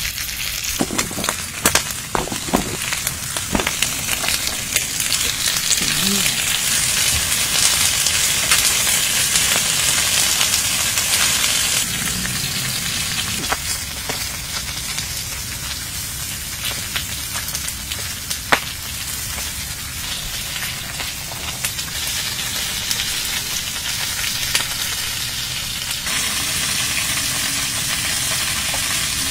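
Pork chops and pork belly sizzling in their fat on a hot round griddle pan. A steady dense sizzle with scattered sharp pops.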